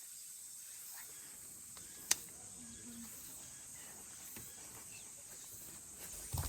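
Faint, steady high-pitched chorus of summer insects, with a single sharp click about two seconds in and a few soft knocks near the end.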